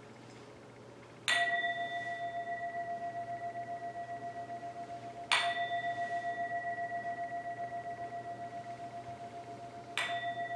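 Handheld singing bowl struck three times, about four seconds apart. Each strike rings on in a long, slowly fading tone that pulses gently.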